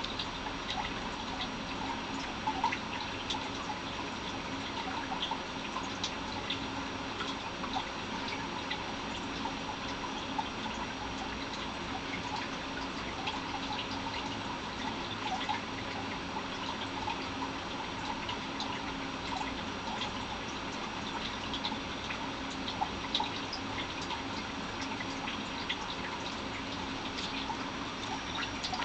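Scattered faint clicks and small rustles from a guinea pig in wood-chip bedding inside a plastic tub, over a steady hiss and hum.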